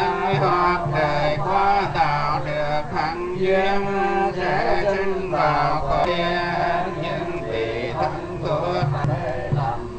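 Buddhist monks chanting in unison, a continuous melodic chant of men's voices with long held notes.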